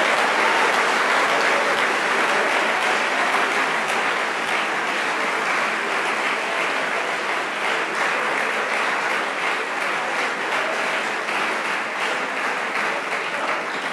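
Audience applauding steadily, the clapping easing off a little toward the end.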